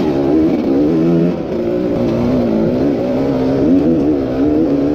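Enduro dirt bike engine running at low revs, its pitch wavering up and down with small throttle changes.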